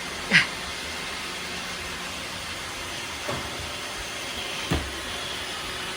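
Robot vacuum cleaners running with a steady whirring hiss as they sweep up confetti, with three brief knocks, the loudest about half a second in.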